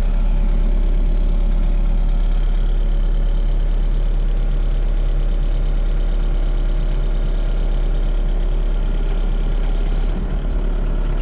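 An engine idling steadily, with a deep low rumble under it. It wavers slightly near the end, and there is a sharp click at the very end.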